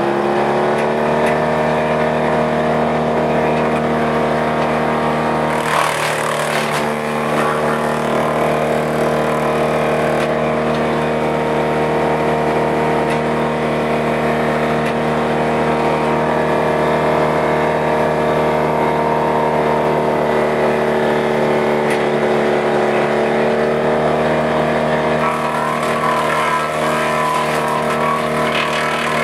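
Morbark M12R wood chipper's 84 hp Caterpillar diesel engine running steadily at working speed, its pitch rising and settling about a second in. Pine branches crackle through the chipper in a short burst about six seconds in and more roughly near the end. The engine pitch sags slightly as it takes the load.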